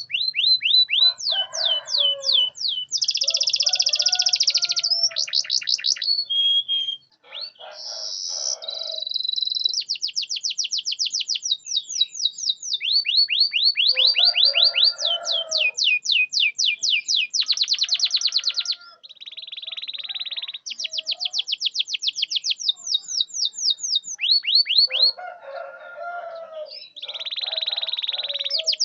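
Domestic canary singing a long song of rapidly repeated notes, switching every second or two between high sweeping trills and buzzing rolls, with lower warbling passages mixed in.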